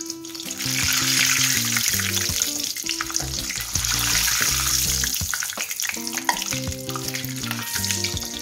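Banana malpua batter deep-frying in hot oil in an iron kadai, a loud sizzle, with a slotted metal spoon moving the fritter through the oil. The sizzle is strongest from about half a second in until about six seconds, then dies down somewhat.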